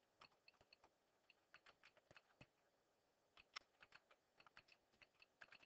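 Faint computer keyboard keystrokes as someone types text, in short irregular runs of clicks with brief pauses between them.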